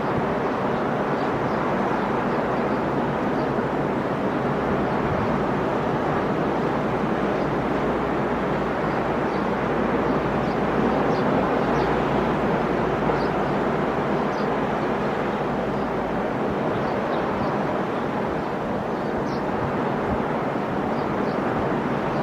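Sea waves breaking and washing up the shore in a steady, continuous surf that swells slightly near the middle.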